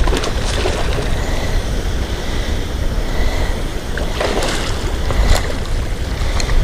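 Wind buffeting the camera microphone, a loud uneven low rumble, with a few short crackles near the start and again after about four seconds.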